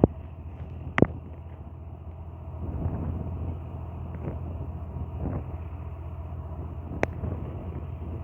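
Steady low drone of a distant engine, with three sharp clicks: one at the start, one about a second in and one near the end.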